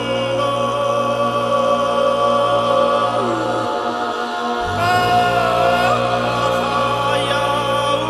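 Throat-singing music: a steady low vocal drone with held tones above it. The low drone drops out briefly about four seconds in, then returns with a new set of held tones.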